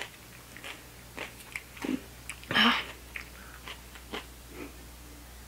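Chewing and crunching on raw jalapeno pepper: scattered soft crunches and clicks, with one louder, longer noise about two and a half seconds in.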